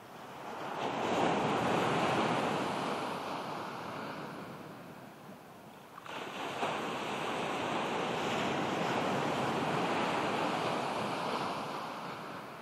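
Ocean surf breaking and washing up a sandy beach, in two long swells: the first builds and fades away, the second rises suddenly about six seconds in and holds before dying down near the end.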